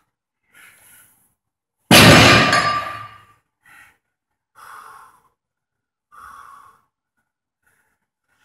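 A 120 kg loaded barbell set down on the floor between deadlift reps about two seconds in: one loud clang of metal plates hitting the floor, ringing as it fades. It is followed by a few short, heavy breaths.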